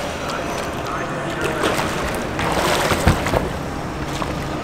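Pool water splashing and sloshing around a capsized kayak as the paddler wet-exits underwater, with a thump about three seconds in.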